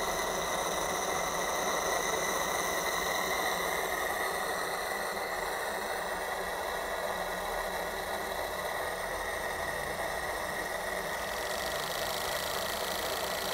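Saito T2DR twin-cylinder model steam engine running steadily on steam from an Aster AMB IIC boiler, a continuous fast mechanical chatter.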